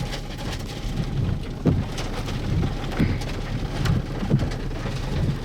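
Rain falling during a thunderstorm, with heavy drops striking close by at irregular intervals over a steady low rumble.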